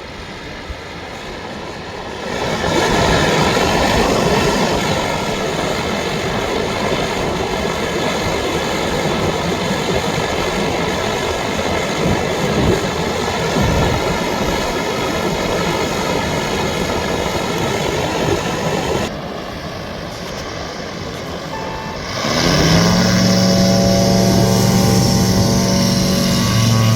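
Propeller engines of STOL light aircraft running on the beach. The sound gets much louder about two seconds in. Around three-quarters of the way through, an engine revs up with a rising pitch and holds at high revs, as if for take-off.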